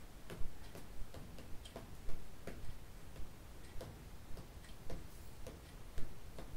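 Light, regular ticking, a few ticks a second, over a faint low room hum.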